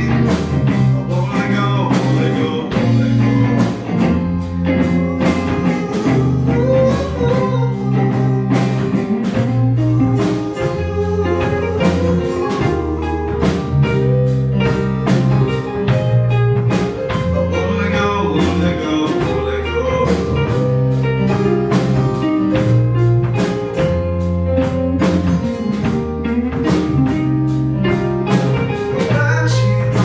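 Live band playing: electric guitars, bass, keyboard and drum kit keeping a steady beat, with a male voice singing over it.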